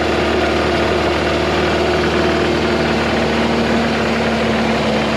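Moskvich-412's four-cylinder petrol engine idling steadily just after a cold start, with a knock from the top of the engine that the owner takes for a worn camshaft.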